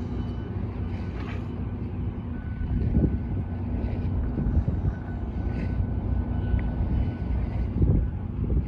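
Steady low outdoor rumble of wind on the microphone and distant port activity, with faint distant reversing beeps now and then.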